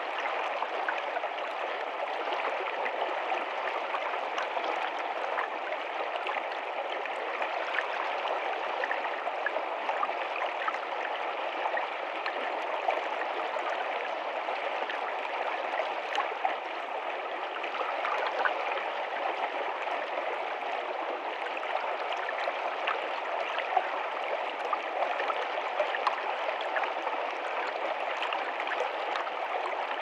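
Small rocky stream rushing over stones close by: a steady flow of water with small splashes throughout.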